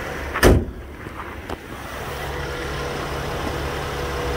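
Steady low hum of the Chevrolet Traverse's V6 engine idling, fuller from about two seconds in. A single loud thump about half a second in.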